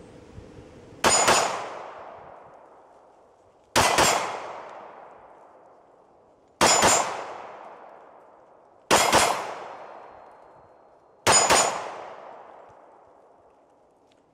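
Five pistol shots from a Glock 20, spaced two to three seconds apart. Each is followed almost at once by the clang of a steel plate target being hit, then a long echoing fade.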